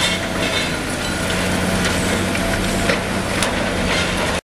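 Liebherr 954 demolition excavator's diesel engine running steadily under load, with scattered cracks and crunches of concrete being broken by its hydraulic crusher jaws. The sound cuts off suddenly near the end.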